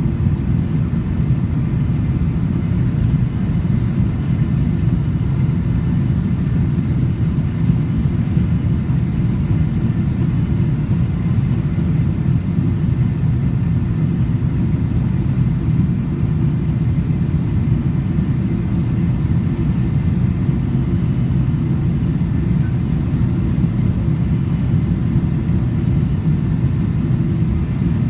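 Steady low rumble of a jet aircraft, holding the same level throughout with no rise or fall.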